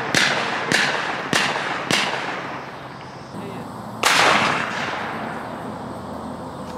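Shotgun shots from a dove hunt: four quick reports about half a second apart, then a fifth about four seconds in, each trailing off in a rolling echo.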